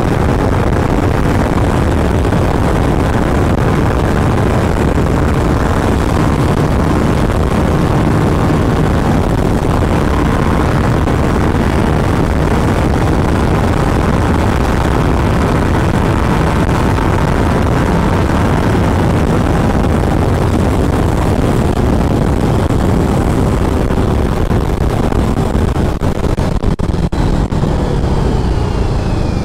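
BMW G 310 RR motorcycle being ridden at speed: a steady rush of wind over the microphone with the single-cylinder engine running underneath. The wind noise turns uneven in the last few seconds.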